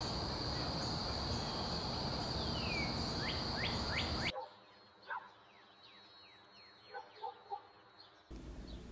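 Outdoor ambience with small birds chirping: a run of short falling chirps over steady background noise and a steady high tone. About four seconds in it cuts suddenly to a quieter ambience with scattered chirps.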